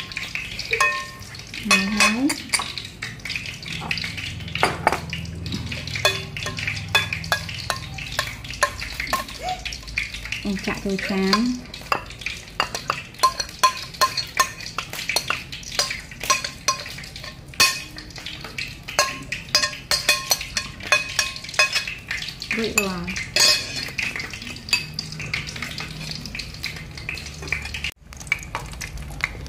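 Food frying in a pan while a metal utensil stirs it, scraping and clinking against the pan in quick, irregular clicks. Three brief rising sounds come about two, eleven and twenty-three seconds in.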